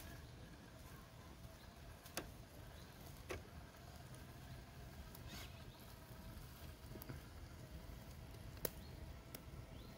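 Traxxas TRX-4 RC crawler's brushed electric motor giving a faint steady whine at crawl speed, with about half a dozen sharp clicks and knocks.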